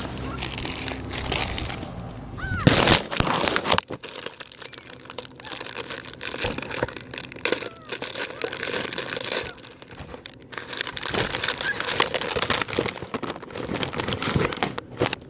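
Plastic snack bag crinkling and rustling, with a louder burst of rustling about three seconds in.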